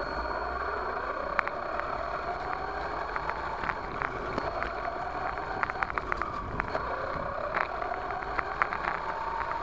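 RC monster truck's motor whining, its pitch rising and falling with the throttle, over the rumble of the tyres on dirt, with scattered sharp clicks and knocks from the truck bouncing over the ground. Heard from a camera mounted on the truck itself.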